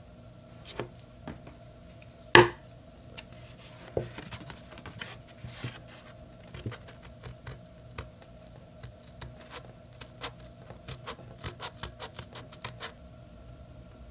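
Small scissors snipping through heavy hot-press watercolor paper in short single cuts, with paper rubbing and rustling as the sheet is turned, and a quick run of snips near the end. One loud knock about two seconds in.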